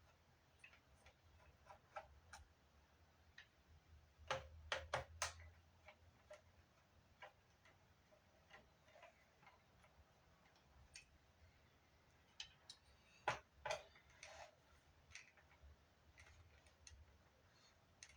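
Faint, irregular small clicks and taps of a screwdriver and hands working on a Fostex MR8 recorder's casing, with a quick run of four sharper clicks about four seconds in and a few more around thirteen seconds.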